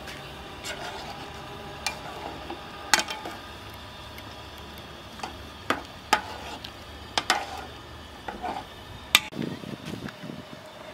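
Metal ladle stirring and skimming broth in a large aluminium pot, with sharp clinks roughly every second as the ladle strikes the pot's side. Under it runs a steady low rumble.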